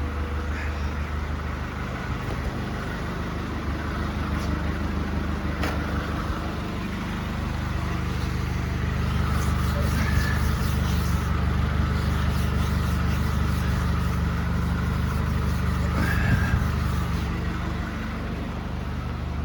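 A freshly rebuilt 1996 Honda Accord engine idling steadily, with a couple of brief clicks.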